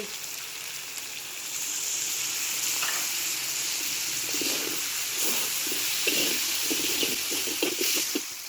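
A splash of water added to a hot pan of frying chillies, hissing and sizzling steadily, with irregular stirring strokes in the second half.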